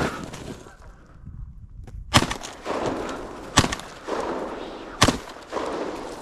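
Three shotgun shots about a second and a half apart.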